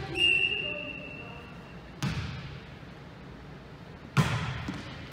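A volleyball being struck three times, about two seconds then one second apart, each hit a sharp slap that echoes in the gym. Near the start, a steady high-pitched squeal holds for about a second and a half.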